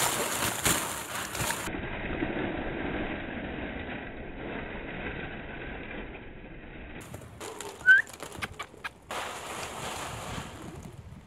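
Plastic ping-pong balls rustling and clicking against each other as puppies bound through a pit of them. About eight seconds in there is one short, high, rising squeak, the loudest sound here.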